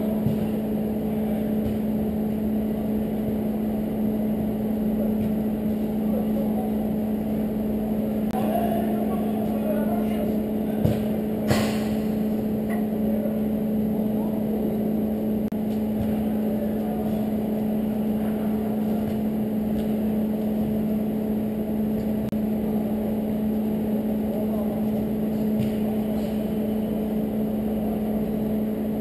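A steady machine hum with a constant low tone, with two sharp knocks close together about eleven seconds in.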